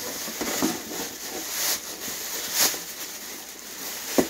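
Thin plastic bag rustling and crinkling as it is pulled open and handled, with a few sharper crackles.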